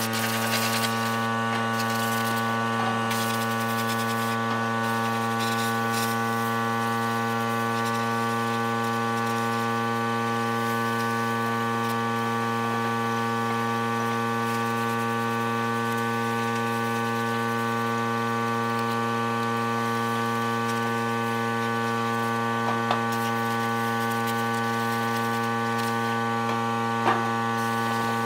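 A steady, unchanging low hum with many even overtones, and a couple of light clicks of tools on the sheet-metal casing.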